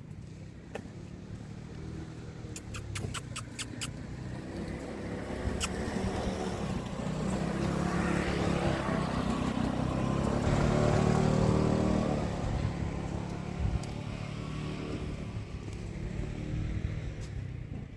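A motor vehicle passing by, growing louder to a peak about eleven seconds in and then fading away.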